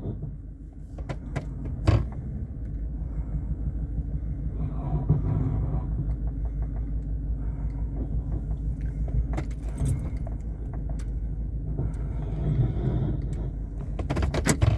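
2011 Chevy Silverado pickup's engine idling steadily, with several sharp clicks and a knock, the strongest about two seconds in. The knocks fit the clunk that the truck makes when shifted into gear, forward or reverse, whose cause the owner does not know.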